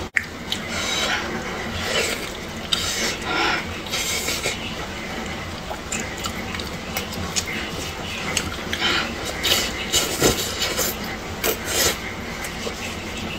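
Close-up eating sounds: clear plastic gloves crinkling and rubbing as hands tear apart a braised pork hock, with wet smacking and slurping as strands of meat are chewed. The sounds come in irregular bursts, with a few sharp clicks.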